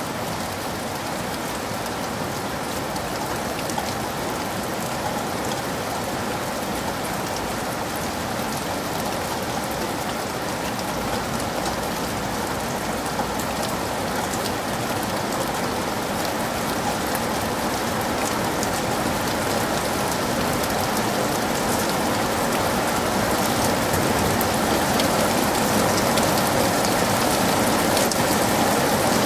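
Heavy rain falling steadily: a dense hiss with many separate drops, growing slowly louder.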